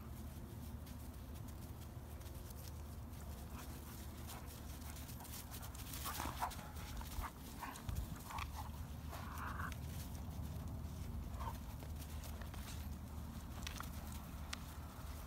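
A Doberman and a black puppy tussling over a rope toy: scuffling on dry grass, with a cluster of short dog sounds between about six and ten seconds in, over a steady low rumble.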